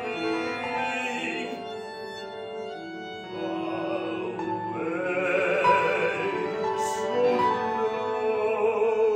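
Classical, operatic-style singing voice holding long notes with wide vibrato over sustained instrumental accompaniment, with a short sibilant hiss about seven seconds in.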